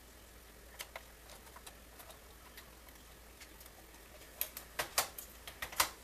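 A 3.5-inch hard drive in a plastic drive caddy being handled and set into a computer's metal drive cage: a few faint scattered clicks, then a quick run of sharper plastic-on-metal clicks and knocks over the last second and a half.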